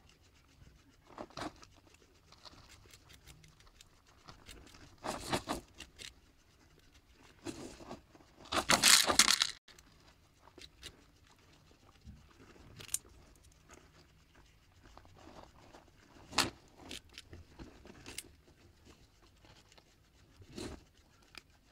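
Guinea pigs crunching and gnawing on carrot in scattered short bursts, with one louder stretch of about a second near the middle.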